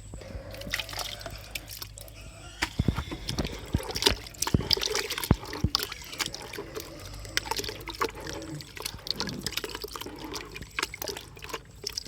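Young pigs eating wet, rice-based mash, with irregular wet slurping and smacking.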